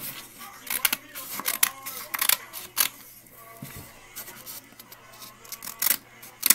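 Scissors snipping through paper in short, irregular cuts, several in quick succession in the first few seconds and two more near the end, with faint music in the background.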